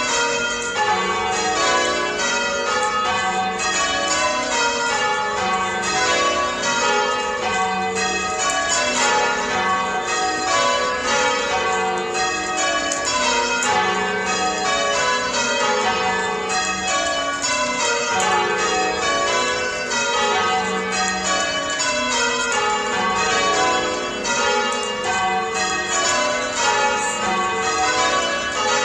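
Church bells being change-rung by a band of ringers on ropes: a continuous, even run of strikes, the bells sounding one after another in rows that fall in pitch.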